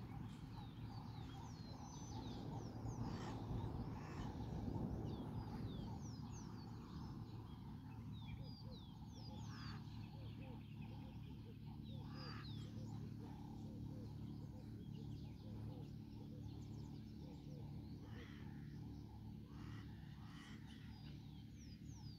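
Birds chirping and calling, many short high chirps throughout, over a low steady background rumble.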